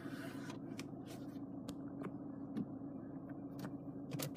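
Steady low hum of the running car heard inside the cabin, with scattered light clicks and rubs from the phone being handled as it is moved.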